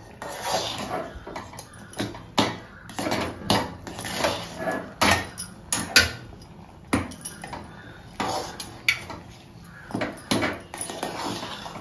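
Stainless steel spoon scraping and clinking against a brass pot while stirring rice flour into boiling water, working it into a thick dough without lumps. The clinks and scrapes come irregularly, one or two a second.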